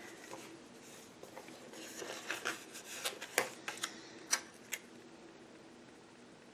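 Paper planner sticker handled and pressed onto a paper planner page: soft paper rustles and a handful of sharp little clicks, starting about two seconds in and dying away about five seconds in.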